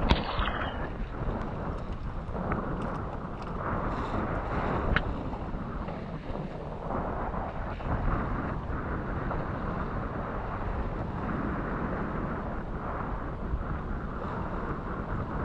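Steady wind buffeting the microphone over the sea washing around a small fishing boat, with a few faint clicks.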